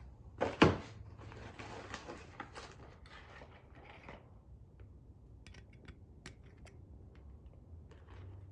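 Metal engine parts and tools being handled: one loud clank about half a second in, then a few seconds of shuffling and scraping, then light scattered clicks.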